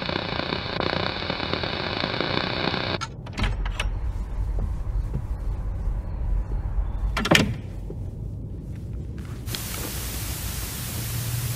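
A steady hiss cuts off about three seconds in, followed by door sounds: latch clicks and a sharp knock about seven seconds in. About nine and a half seconds in, a CRT television's static hiss starts abruptly and runs on evenly.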